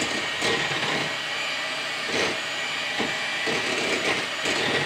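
Electric hand mixer running steadily, its beaters whipping cake batter in a glass bowl.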